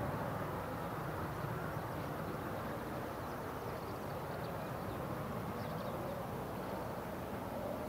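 Distant aircraft engine noise, a steady rush that slowly fades.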